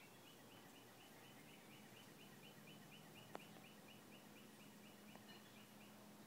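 Faint bird calling: a steady series of short, slightly falling notes, about five a second, that stops about five seconds in, over near-silent backyard ambience.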